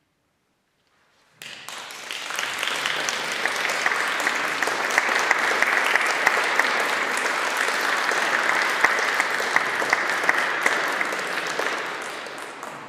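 Audience applauding, starting suddenly about a second and a half in after a short silence and fading away near the end.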